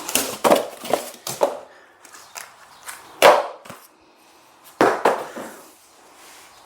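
Sharp plastic clicks and knocks as a pressure washer hose is pushed into the spray gun's push-in ring coupling and handled, a handful of separate snaps spread across a few seconds.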